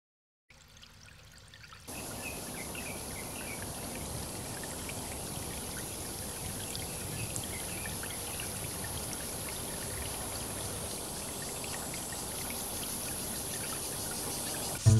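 Water trickling and flowing in a small concrete irrigation canal: a steady hiss that comes in about two seconds in, with a few short high chirps over it early on.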